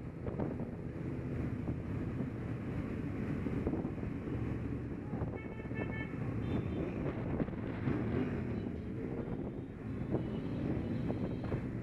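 Motorcycle engine running at riding speed, its note shifting a little with the throttle, with wind buffeting the microphone.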